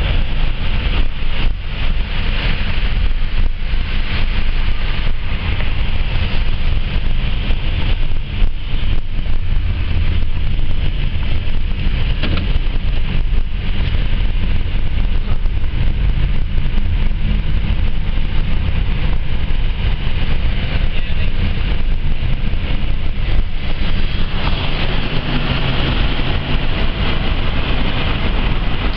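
Steady highway vehicle noise: a continuous low rumble of engines and tyres, with wind on the microphone. About 24 s in, the noise becomes hissier.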